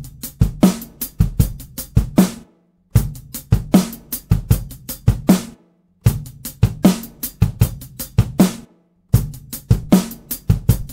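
Recorded drum kit played back without EQ: the same short beat of kick drum, snare and cymbals repeats about every three seconds, with a brief silence between passes. Each pass is the kick drum as picked up by a different microphone, among them an AKG C214, a Black Bullet and a home-built Vamisound V47F U47fet clone.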